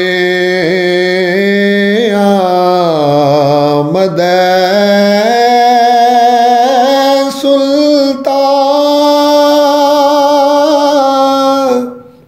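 A man's solo voice chanting a Persian devotional verse, drawing out the words 'Gada'e amad' in long, slowly wavering held notes. The voice stops shortly before the end.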